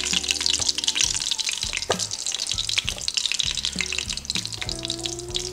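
Oil and butter sizzling with a steady fine crackle as they heat in the Instant Pot's inner pot on the sauté setting, getting hot enough to brown meat.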